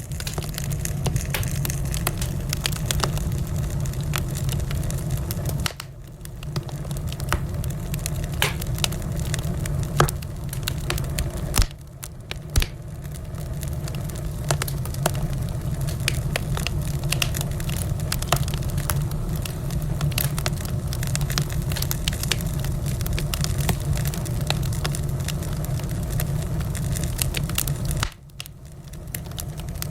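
Wood fire burning in a fireplace, with a steady low rumble of flames and frequent crackles and pops from the burning logs; one pop about ten seconds in is the loudest. The sound drops away briefly three times.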